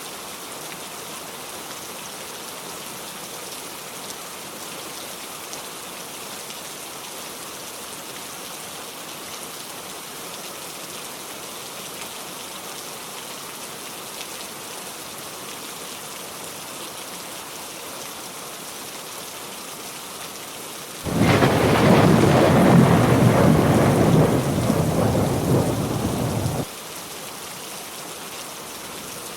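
Heavy rain falling steadily, an even hiss. About two-thirds of the way through, a loud rumble of thunder comes in suddenly, lasts about five seconds and cuts off abruptly.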